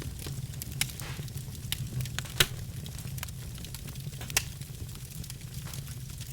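Birch logs burning in a fireplace, crackling with scattered sharp pops, the loudest about two and a half seconds in, over a steady low rumble of the fire.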